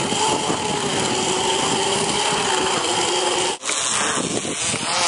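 Zipline trolley pulleys running along a steel cable: a steady whirring whine with a slight downward drift in pitch, broken by a sudden short gap about three and a half seconds in.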